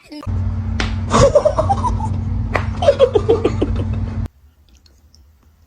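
A person laughing in two short runs of quick "ha-ha" pulses over a steady low hum. The sound cuts off suddenly about four seconds in.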